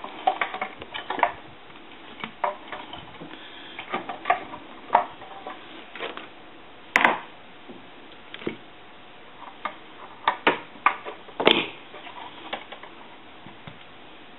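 Irregular clicks, taps and light knocks of small hand tools and parts being handled on a repair bench. A sharper click comes about halfway through and another a few seconds later.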